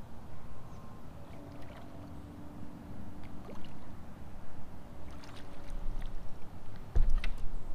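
A spinning rod and reel working a hooked bass: the reel being wound in, with small clicks and knocks of handling over a low rumble of wind and water against the boat. A heavy thump comes near the end.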